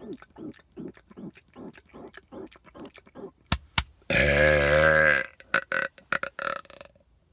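A man's loud burp lasting about a second, its pitch rising and then falling. Before it comes a run of short throaty sounds, about three or four a second, then two sharp clicks.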